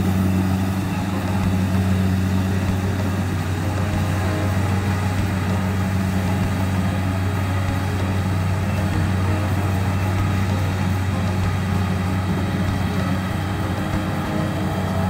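Kubota rice combine harvester's diesel engine running steadily under working load as the machine cuts and threshes, an even low hum that doesn't change.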